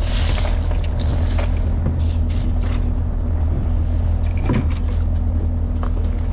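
Boat motor idling steadily, with a few light knocks and clinks of handling at the iced fish box over it.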